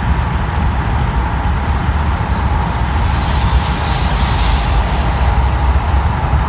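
Steady low rumble heard from inside a moving car driving alongside a freight train, with no voices. A brief hiss swells about three and a half seconds in and dies away about a second later.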